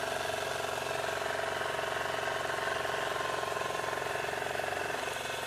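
Small petrol outboard motor running steadily at cruising throttle, pushing the yacht upstream against the river current.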